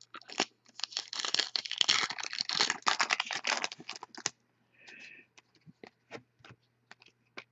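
Foil trading-card pack wrapper being torn open and crinkled for about four seconds, followed by scattered light clicks as the cards inside are handled.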